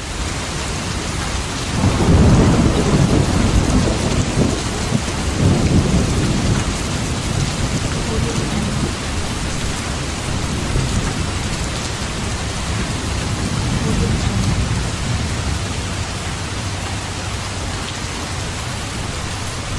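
Steady light rain with thunder rumbling over it: two heavy rolls about two and five and a half seconds in, and a softer roll later on.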